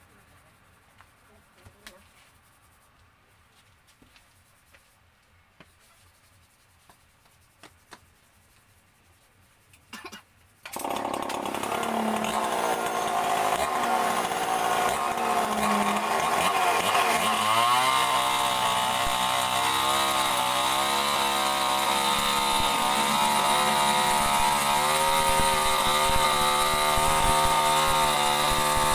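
Near silence with a few faint ticks, then about a third of the way in a chainsaw starts up suddenly and runs. Just past halfway it revs up to a steady high speed as it begins ripping lengthwise into a mahogany beam.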